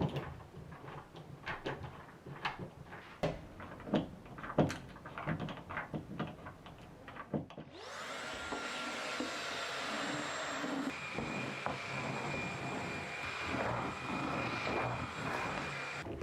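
Light knocks and clicks of household items being handled, then a vacuum cleaner switches on about halfway through and runs steadily with a faint constant whine.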